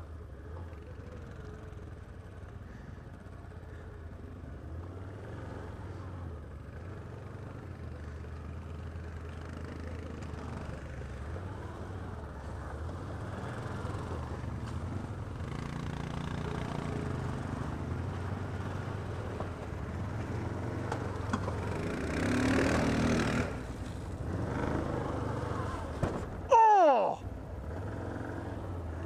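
ATV engine running at trail-riding speed, its low hum rising and falling with the throttle. A few seconds before the end there is a louder surge of noise, and near the end a brief, very loud screech that falls steeply in pitch.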